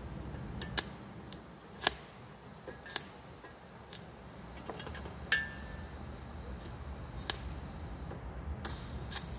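TIG welding on a steel M1 helmet: several sharp metallic clicks and taps in the first three seconds, then a short high-pitched buzz about four seconds in, typical of the TIG torch striking a brief tack on the bail.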